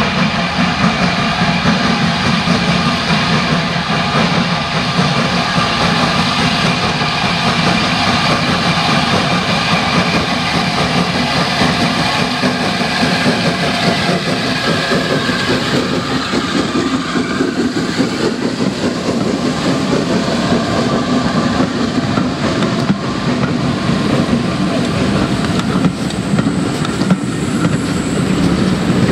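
Hunslet Austerity 0-6-0 saddle-tank steam locomotive working a passenger train past. Its sound sweeps down in pitch as it goes by about halfway through, and then the coaches roll past with wheels clicking over the rail joints.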